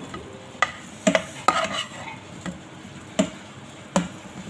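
Slotted spatula stirring and turning chicken pieces in a thick cream sauce in a nonstick frying pan, scraping and knocking lightly against the pan about six times, over a soft sizzle.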